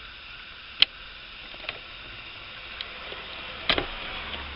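A few small sharp plastic clicks as a fuse is worked out of a car's fuse box: a loud click about a second in, a fainter one shortly after, and a double click near the end, over a faint steady hiss.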